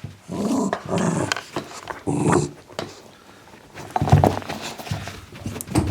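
Pet dog vocalising in several short growly bursts, with a pause in the middle.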